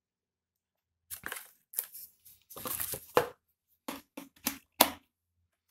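Thin plastic packaging bag crinkling and rustling in a string of short bursts as it is handled, starting about a second in.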